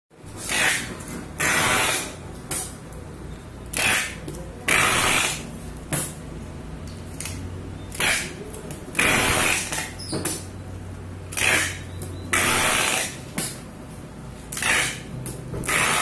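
Packing tape screeching as it is pulled off the roll of a handheld tape dispenser and laid onto cardboard crates, a dozen or so pulls of half a second to a second each, one after another.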